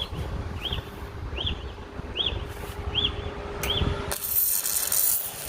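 Six short high chirps, evenly spaced about three-quarters of a second apart, over a faint steady hum. About four seconds in, a MIG welder's arc strikes and sizzles, with the wire feeding far too fast.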